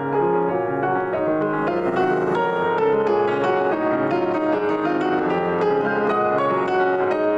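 Solo grand piano playing a classical piece, a continuous flow of notes.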